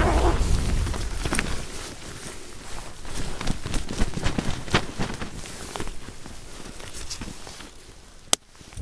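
Nylon tent flysheet rustling and flapping as its door is pulled open and folded back, with scattered sharp clicks and rustles and a single sharp click near the end. Wind buffets the microphone in the first couple of seconds, then eases.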